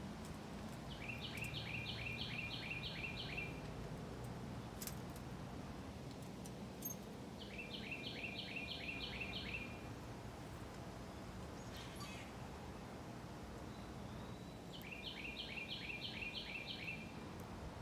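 Northern cardinal singing: three phrases a few seconds apart, each a quick run of about eight repeated downslurred whistles, over a steady faint outdoor hiss with a few light ticks.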